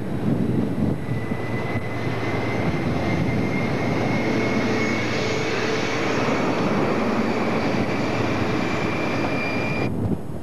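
British Rail InterCity 125 (HST) Class 43 power car running close by. Its diesel engine makes a steady high-pitched whine that rises slightly in pitch. The sound cuts off abruptly near the end.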